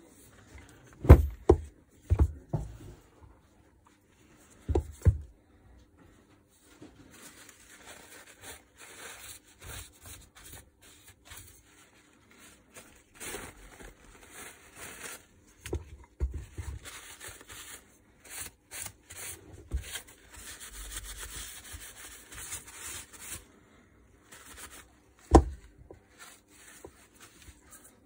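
Metal housing parts of a Makita UD2500 garden shredder's motor and gearbox are set down and handled on a workbench, giving several sharp knocks in the first few seconds. A long stretch of rag rubbing and wiping over the housing follows, and one more knock comes near the end.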